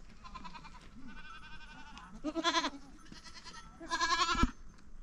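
A goat bleating in a series of quavering calls, the two loudest about halfway through and near the end.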